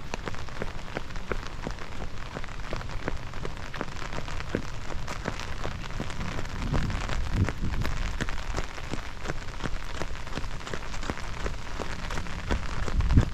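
Steady rain, with many single drops ticking on an umbrella held overhead over a hiss of rain on wet pavement. Low rumbles come in about halfway through and again near the end.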